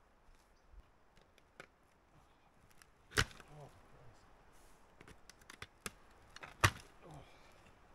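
Two sharp, loud knocks about three and a half seconds apart, each followed by a short wavering ring, with lighter clicks and scrapes around them: hand digging and prying through debris and old metal in the dirt.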